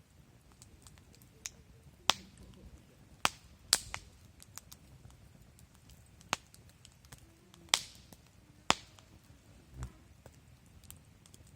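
Wood fire crackling, with about six sharp pops and many small ticks over a soft hiss, and a dull thump near the end.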